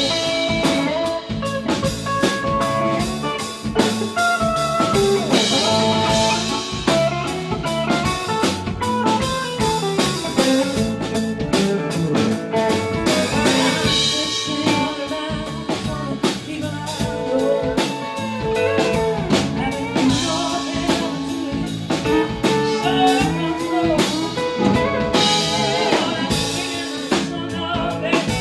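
Live band playing a song: a woman singing over acoustic and electric guitars, pedal steel guitar, electric bass and a drum kit.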